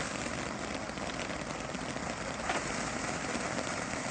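Star Shower fountain firework (Brothers Pyrotechnics, consumer 1.4G) burning with a steady rushing hiss of sparks.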